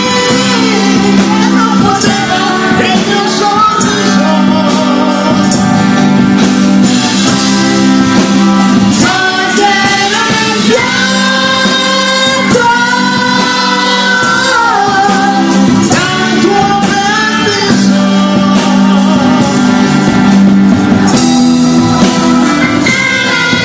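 Live band playing a pop-rock song, with a man and a woman singing into microphones over guitars and drums.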